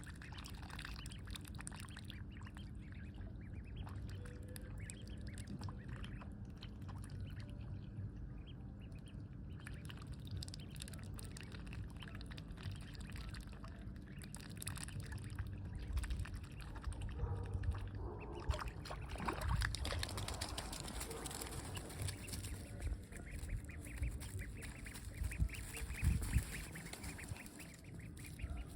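Ducks quacking by a pond, the calls busier and louder in the second half, over a steady low rumble.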